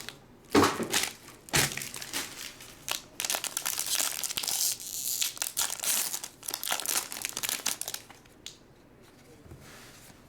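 Trading-card pack wrappers crinkling and being torn open, with busy rustling and crackling that dies down to quieter handling about eight seconds in.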